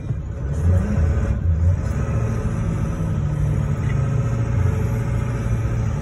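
Steady low engine rumble heard from inside a vehicle's cab, its drone rising and falling slightly in pitch.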